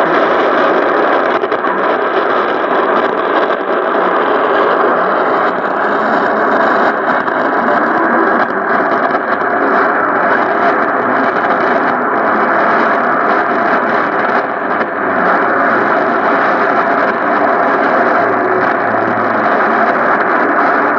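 Shortwave receiver's speaker tuned to 5945 kHz AM with the narrow filter, giving a steady, muffled rush of static from a weak, long-distance broadcast signal that barely rises above the noise.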